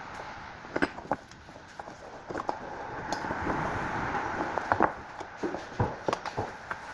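Scattered light clicks and knocks of grease gun parts and tools being handled, at irregular moments over a steady background hiss.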